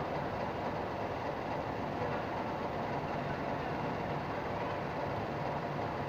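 Steady mechanical rumble and hum that runs on without a break.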